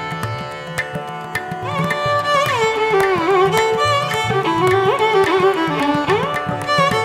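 Background instrumental music in an Indian classical style: a melody gliding between notes over a steady hand-drum rhythm.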